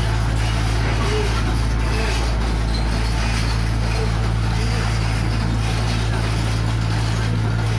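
Mini excavator's diesel engine running with a steady low drone as the machine moves along on its crawler tracks.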